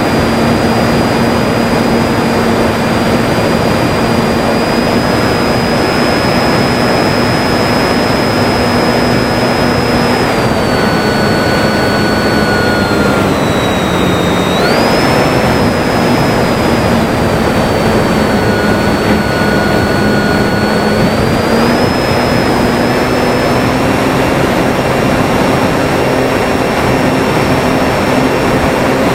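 Durafly Tundra RC model plane's electric motor and propeller whining over a loud, steady rush of noise. The whine holds its pitch for the first third, sags to its lowest about halfway through, then jumps back up and climbs slowly toward the end as the throttle changes.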